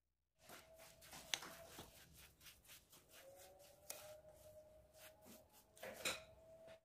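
A hand rubbing and working dry, grainy fine-semolina mixture in a glass bowl: a quiet run of gritty rustling and scraping strokes, with a couple of sharper clicks, about a second and a half in and near the end.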